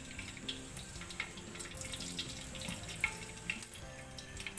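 Ghee crackling and sizzling faintly as it melts in a hot nonstick pot, with irregular small pops.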